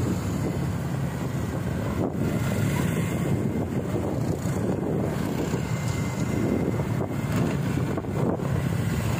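Wind buffeting the microphone: a steady, rumbling rush without a break.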